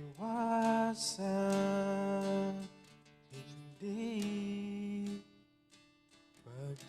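Background music: a slow acoustic guitar ballad with two long held melody notes, a short lull, then the melody picking up again near the end.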